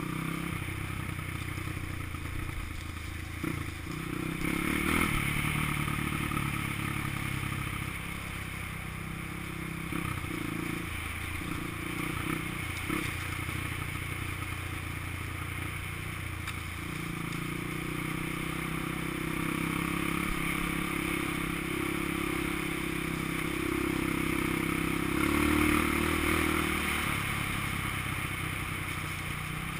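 Honda XR200 dirt bike's single-cylinder four-stroke engine running while riding a trail, its note rising and falling with the throttle, pulling harder a few seconds in and again near the end.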